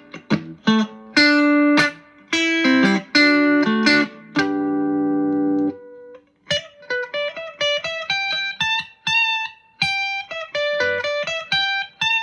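Electric guitar played through a JHS Ross Compressor in its bright mode, set for a subtle effect with the level raised. A few sustained chords ring out, then after a short pause comes a run of single notes higher up, each held evenly.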